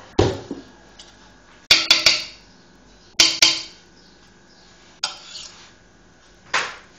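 A metal fork clinking against a metal saucepan of warm apricot jam: sharp clinks with a short ring, three or four close together about two seconds in, two more a little after three seconds, then single knocks.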